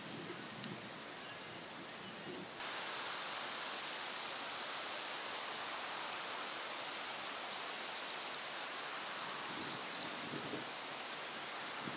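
Outdoor ambience: a steady high-pitched insect trill over an even hiss, shifting slightly at a cut about two and a half seconds in.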